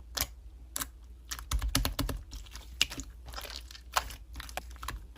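Slime being worked by hand, giving off an irregular run of sharp clicks and crackles.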